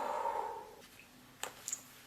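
A woman's short, softer burp that starts sharply and fades out within a second, followed by a few faint clicks.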